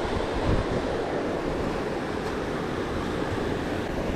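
Steady rush of flowing river water mixed with wind buffeting the microphone.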